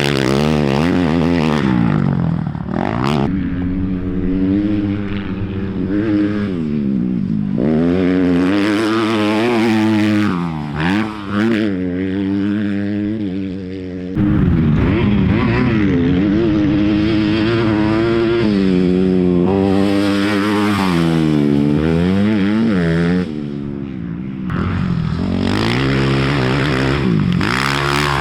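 Off-road racing motorcycle engine revving, its pitch climbing and dropping again and again as the bike accelerates and shifts. The sound changes abruptly about halfway through and again near the end.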